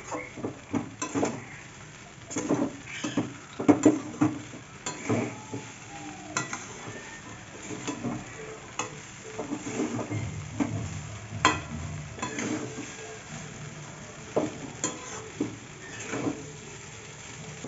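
Metal spatula stirring and tossing flattened rice in a kadai, with irregular knocks and scrapes of the spatula against the pan over a frying sizzle.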